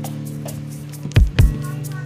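Background music with a steady beat: held bass notes under regular light ticks, with two low drum hits a little past halfway.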